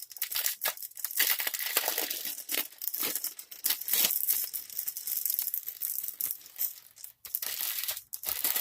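Small plastic bags of diamond-painting drills crinkling and rustling as they are handled, in short irregular bursts.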